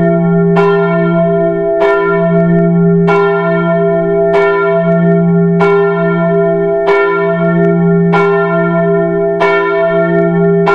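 A church bell tolling at the same pitch, struck about once every second and a quarter, each stroke ringing on under the next.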